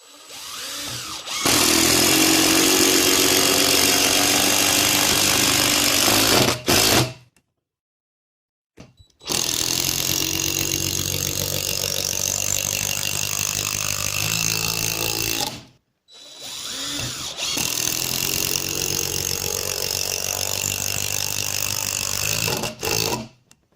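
Cordless DeWalt power tool running under load in three separate runs of several seconds each, driving screws into wood.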